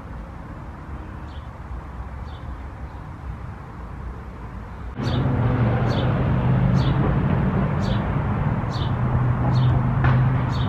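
Outdoor ambience of a bird chirping repeatedly, short high falling chirps about once a second. About five seconds in a louder steady low hum comes in under the chirps and runs on.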